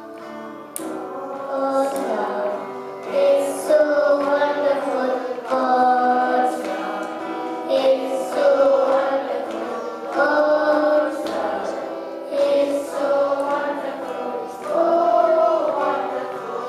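A young boy singing a song solo into a handheld microphone, in phrases of long held notes.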